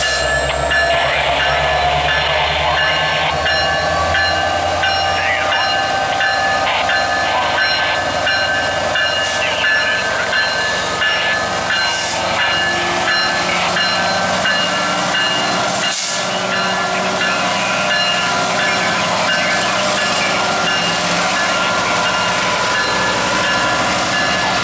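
Pair of EMD SD70M-2 diesel-electric locomotives passing close by, their turbocharged V16 two-stroke engines running under a continuous rumble of wheels on rail. A high whine rises slowly in pitch over the first ten seconds, and a single sharp clack sounds about sixteen seconds in.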